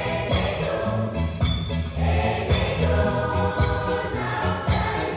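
Children's choir singing together, with hand claps keeping an even beat.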